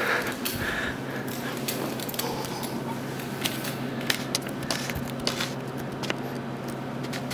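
Quiet room tone: a steady low hum, with scattered light clicks and rustles from someone moving about with a handheld camera.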